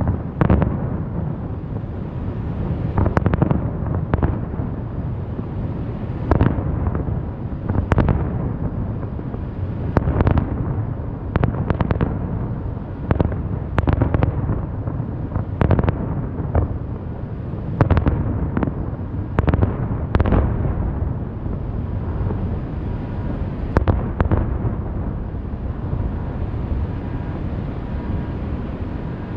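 Aerial fireworks shells bursting in a rapid series of bangs, about one every second or two, over a continuous low rumble; the bursts thin out near the end.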